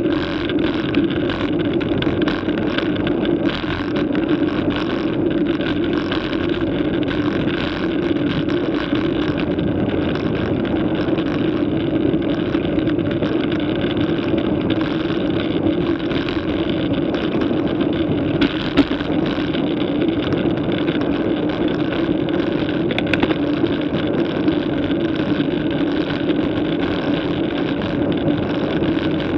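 Steady wind and road noise on a bicycle-mounted camera's microphone while riding at speed, with a constant hum underneath and a couple of brief clicks about two-thirds of the way through.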